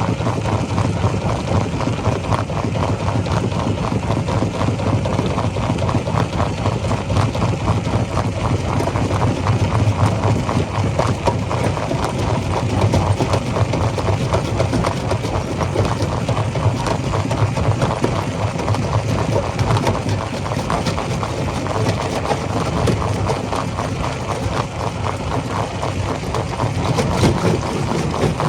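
Rock crusher running: a steady low machine hum under a dense, rapid clatter of stone knocking.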